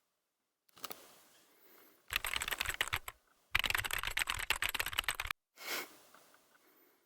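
Typing on a computer keyboard: two quick runs of rapid keystrokes, each a second or two long, with a single soft knock before and after them.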